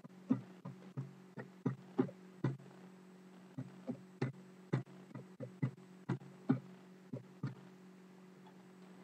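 Computer keys clicking at an irregular pace, two or three clicks a second, stopping near the end, over a steady electrical hum.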